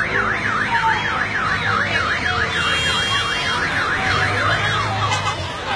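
Electronic siren wailing rapidly up and down, about three sweeps a second, stopping near the end.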